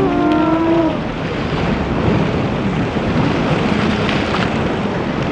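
Wind buffeting the microphone and water rushing steadily during a boat ride, with a short pitched voice-like call in the first second.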